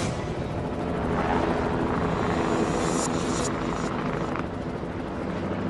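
Helicopter hovering low, its rotor and engine running steadily.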